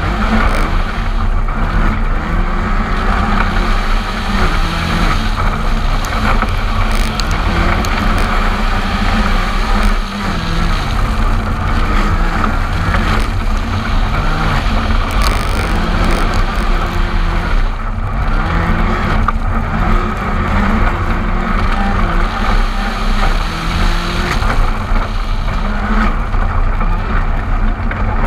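Ford Fiesta R5 rally car's turbocharged 1.6-litre four-cylinder engine, driven hard, revving up and dropping again and again through quick gear changes. It is heard from a camera mounted on the outside of the car, over steady road and wind noise.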